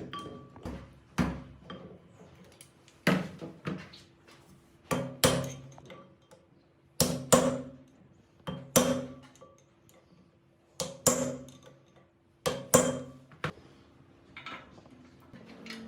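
Metal knocks and clanks in pairs, each ringing briefly, from tools and engine parts struck or set down on metal during the restoration work.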